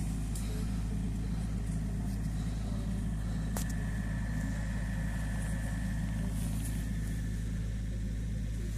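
Excavator's diesel engine running steadily at a distance, a constant low hum, with one sharp click a little over three seconds in.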